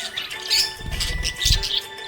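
Budgerigar chirping in a run of quick, short, high calls, over steady background music, with a low rumble about a second in.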